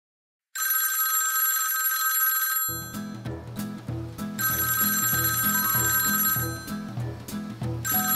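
A telephone ringing in three bursts of about two seconds each, the first starting sharply about half a second in. Music with a pulsing bass beat comes in underneath about three seconds in.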